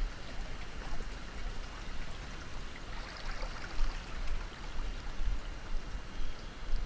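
Steady rush of running water from a small stream or canal channel, with irregular low thumps underneath.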